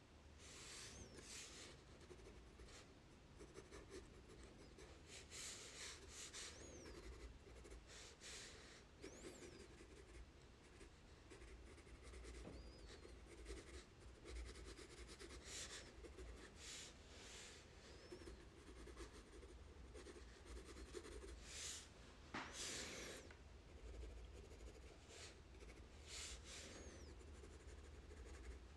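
Faint graphite pencil strokes scratching on sulphite drawing paper, in short irregular shading strokes.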